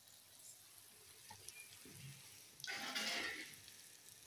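Mango and capsicum pickle in oil sizzling faintly in a pot just taken off the fire, still bubbling from its own heat, with a louder hiss lasting about a second midway.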